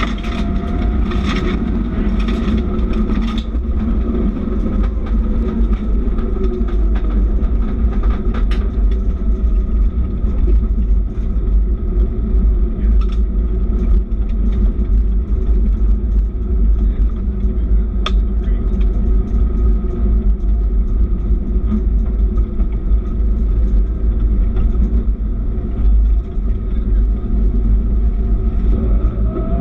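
Subaru rally car's flat-four engine running hard at speed on a gravel stage, heard from inside the cabin as a loud steady drone over a heavy low rumble from the tyres and road. There are scattered sharp clicks, several in the first few seconds, and the engine revs rise near the end.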